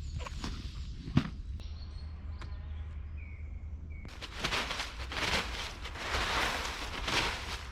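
A few sharp knocks, then faint brief chirps, then rhythmic crunching noise about once a second through the second half, over a low steady rumble.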